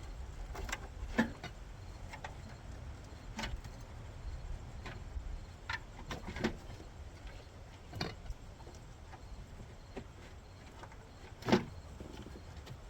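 Irregular knocks and clicks of engine parts being handled as the plastic intake manifold is worked loose under the hood, the loudest knock near the end, over a low background rumble.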